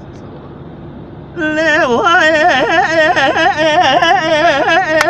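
An elderly man singing unaccompanied in the Kurdish dengbêj style, a long wordless line with heavy wavering ornaments. It comes in strongly about a second and a half in, after a pause in which only the steady road noise of the car's cabin is heard.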